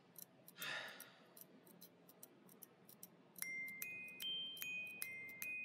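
Soft film score: a slow melody of single, ringing bell-like mallet notes, glockenspiel-like, comes in about three and a half seconds in. Before it there are faint, evenly spaced high ticks and a short rustle.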